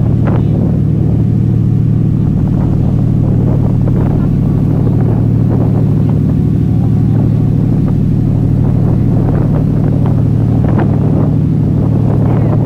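A ship's engines running with a steady low drone, over the rushing of its wake churning along the hull.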